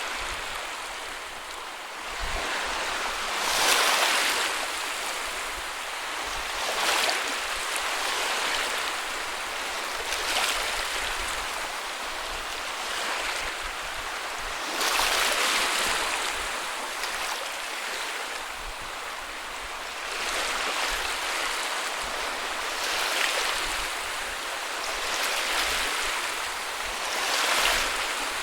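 Ocean waves breaking on a beach: a steady wash of surf with a swell of breaking water every few seconds.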